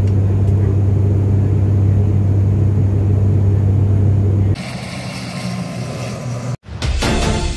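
Steady low drone of a vehicle's engine. About four and a half seconds in it cuts to a quieter, even hiss, and after a brief silence music starts near the end.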